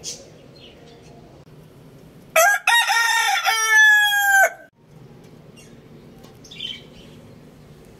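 A rooster crowing once, starting about two seconds in: a few short notes run into a long held final note, the whole crow lasting about two seconds and loud.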